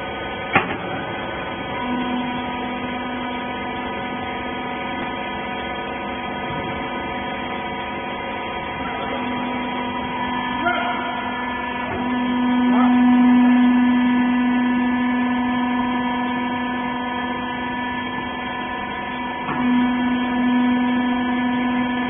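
Hydraulic pump motor of a horizontal wiper bagging baler running with a steady hum. The hum comes in about two seconds in and swells for a few seconds near the middle. A sharp click comes near the start, and a few more follow later.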